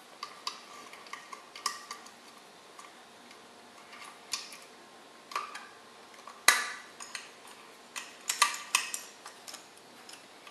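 Light metallic clicks and clinks of a hex key turning in the small bolts of an engine's timing pointer, with one sharper clink about six and a half seconds in and a quick run of clicks near the end.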